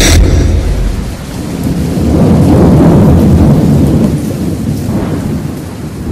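The music cuts off and a rumble of thunder with rain follows, swelling to a peak about three seconds in and then slowly fading.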